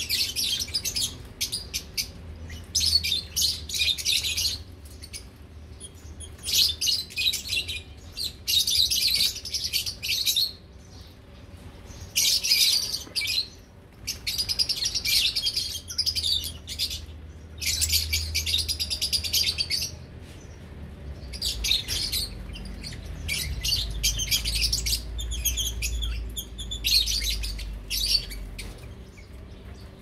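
A flock of lovebirds chattering shrilly in the aviary, in bursts of dense high chirps lasting a second or two, with short lulls between them.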